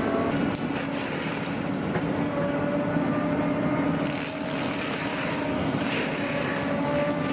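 Heavy wood-shredding machine running under load: a steady engine drone with a whine above it, and surges of shredding noise about four and six seconds in as wood is fed through.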